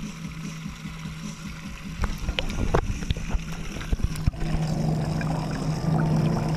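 A steady low motor hum carried through the water of a tank crowded with spiny lobsters. It grows louder about four seconds in, with a scatter of sharp clicks and knocks just before.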